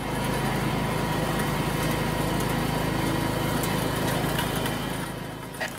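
Riding lawn tractor's engine running steadily as it tows a lawn sweeper, with the rush of the sweeper's rotating brushes flinging leaves into the hopper. The sound eases off near the end.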